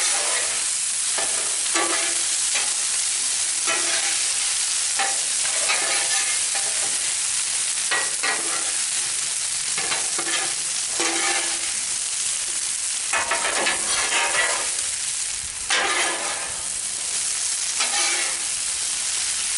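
Stir-fry of chicken, vegetables and sauce sizzling on a Blackstone flat-top griddle with a steady hiss, while spatulas scrape and toss it in repeated strokes about every second or two.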